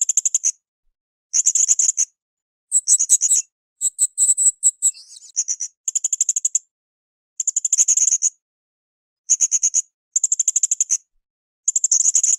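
Blue-crowned hanging parrot (srindit) calling in repeated bursts of rapid, very high-pitched chips, each burst under a second long, coming about once every one to two seconds with silence between.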